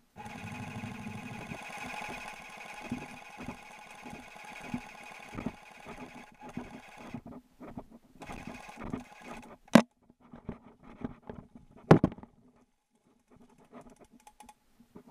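Airsoft electric rifle firing on full auto, a steady buzzing burst that runs about seven seconds. After it come scattered short knocks and two sharp, loud cracks near the end.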